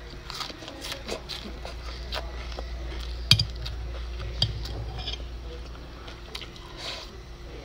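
Eating sounds: metal chopsticks clicking against a glass food container, with chewing. Two sharper clinks come a little past the middle, over a low steady hum.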